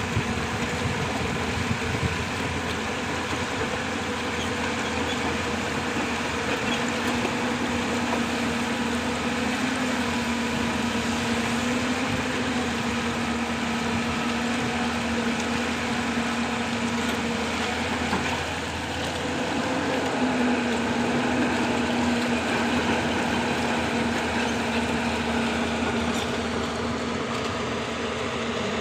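Diesel engine of a Hyundai 220-9S hydraulic excavator running steadily under work. It eases off briefly about two-thirds of the way through, then picks up again.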